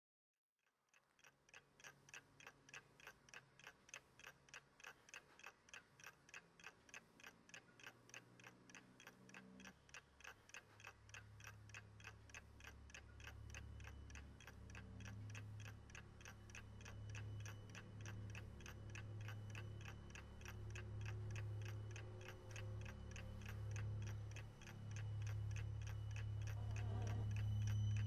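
Analogue alarm clock ticking quickly and evenly. Beneath it, a low steady hum builds from about a third of the way in and grows louder, overtaking the ticking near the end.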